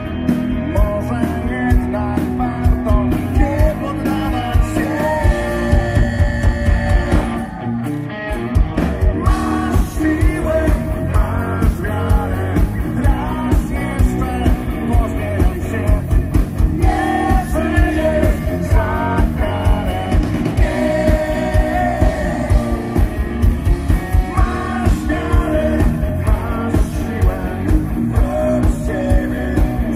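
Live rock band playing: a man singing into a microphone over electric guitars and a steady drum beat, with a short break in the beat about seven and a half seconds in.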